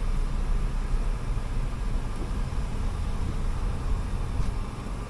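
Steady low rumble inside the cabin of a new Hyundai Elantra as it is driven slowly, engine and tyre noise heard from the driver's seat.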